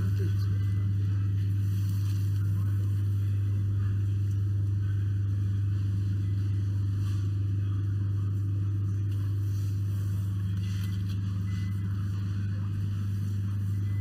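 A steady low hum, unchanging throughout, with faint background noise above it.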